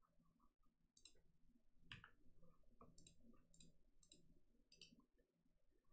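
Near silence with about half a dozen faint computer mouse clicks spread through it.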